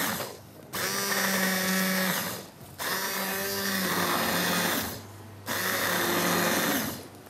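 Electric immersion (stick) blender puréeing onion soup in a stainless steel pot, switched on in three bursts of about one and a half to two seconds each, with short pauses between.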